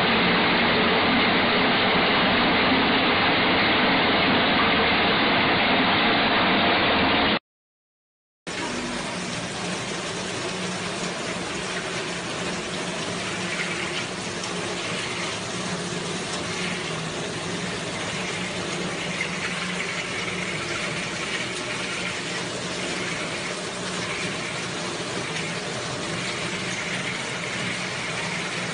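Small secondary-structure column concrete pump running steadily while fine stone concrete is fed into its hopper. The noise cuts out completely for about a second around seven seconds in, then the machine is heard again somewhat quieter.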